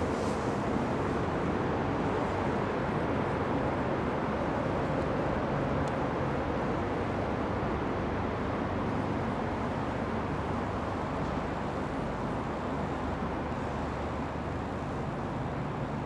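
Steady low background rumble with no distinct events, easing slightly toward the end.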